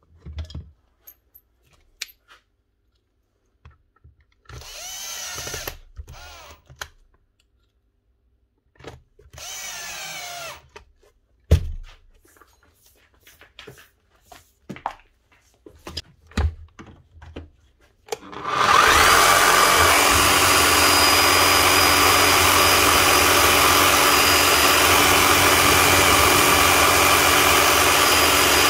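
Light clicks and handling knocks with two short whirring bursts, then about 18 seconds in a Bosch electric hammer's motor starts with a rising whine and runs steadily and loudly. It is the test run on a freshly fitted set of carbon brushes.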